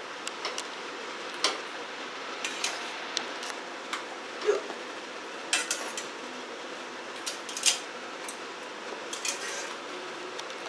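A utensil knocking and scraping against the side of a pot while glass noodles are stirred in water, in irregular light clinks, a few louder ones among them, over a steady low hiss.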